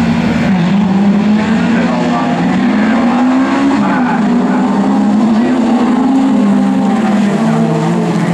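Engines of a pack of jokkis (everyman-class) rallycross cars revving hard as they pull away from a standing start into the first corner, the engine pitch rising and falling.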